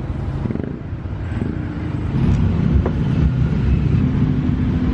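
Motor vehicle engine and road noise, a steady low rumble that grows louder about two seconds in.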